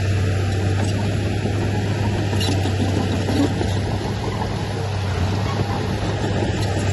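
Diesel engine of heavy earthmoving machinery running steadily with a constant low hum.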